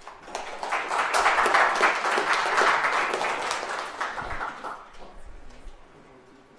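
Audience applauding: many hands clapping, swelling within the first second or so, then dying away about five seconds in.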